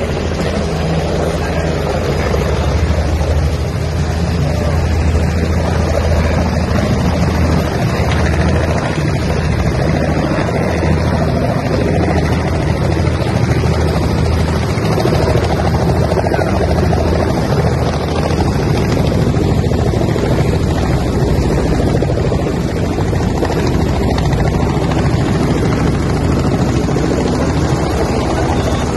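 Light helicopter running on the ground, its engine and turning rotor a loud, steady drone.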